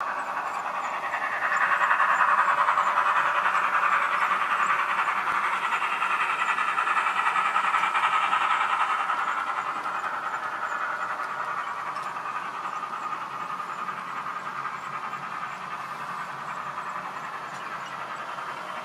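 H0e narrow-gauge model train running on the layout track: the steady running noise of its motor and wheels on the rails. It is loudest in the first half and fades as the train moves away.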